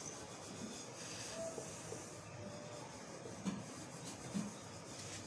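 Marker pen writing on a whiteboard: faint rubbing and scratching of the felt tip.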